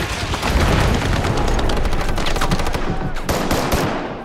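Heavy automatic gunfire: several rifles firing rapidly at once, the shots overlapping without a break.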